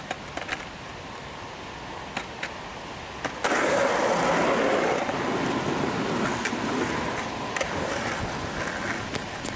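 Skateboard dropping in on a concrete quarter pipe: a few light clicks from the board and feet at the coping. About three and a half seconds in comes a sudden loud onset of polyurethane wheels rolling on concrete, a steady rolling noise that slowly fades as the board rolls out across the flat.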